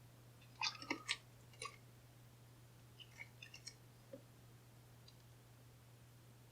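Faint, irregular clicks and scrapes from the discs of a cheap disc detainer padlock being turned with a pick, some in quick clusters. The discs are gritty and grindy inside.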